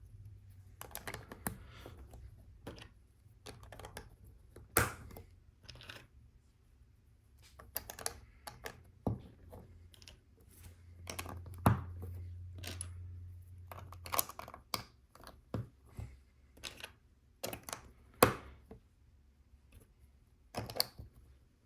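Plastic LEGO bricks clicking and tapping as they are handled and pressed together: irregular sharp clicks, a few louder snaps among them, over a faint low hum.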